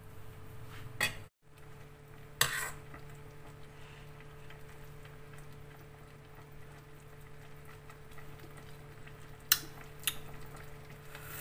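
A few sharp clinks of a metal spoon against a soup pot, over a steady low hum.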